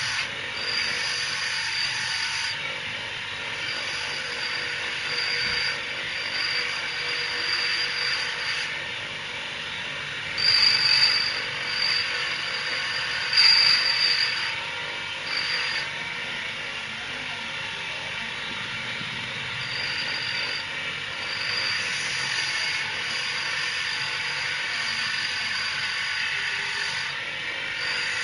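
A gemstone grinding machine for agate runs with a steady whirring hiss, a high whine coming and going over it. It grows louder twice around the middle.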